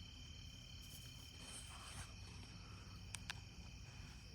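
Faint, steady chorus of crickets on a late-summer night, with two short sharp clicks a little after three seconds in.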